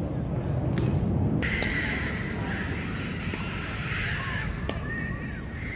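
Wind rumbling on the microphone at an outdoor tennis court, with a few faint knocks of tennis balls. From about a second and a half in, a steady high tone sits above it, with a few short chirps.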